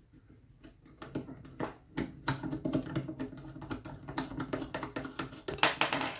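Small metallic clicks and rattles as a torch holder is loosened and worked off the annealing machine's metal top plate. Scattered at first, the clicking gets dense about two seconds in, with the loudest clatter near the end.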